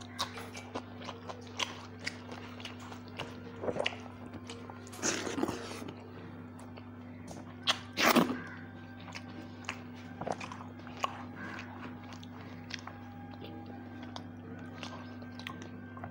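Close-miked chewing and crunching of food eaten by hand: irregular mouth clicks with louder crunches about four, five and eight seconds in, the loudest near eight seconds, over a steady low hum.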